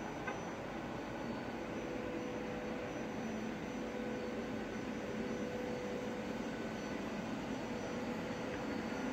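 Steady background noise with a faint constant hum in it.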